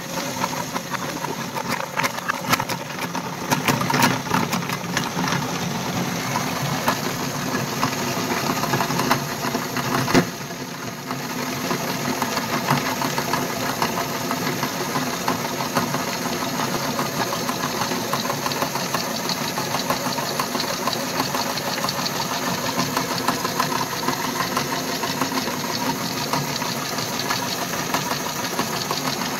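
Meat grinder running steadily as its auger crushes a bar of soap and forces the flakes through the cutting plate. There is a dense crackle of small clicks over the first ten seconds or so, then a brief dip about ten seconds in, after which the drone is smoother.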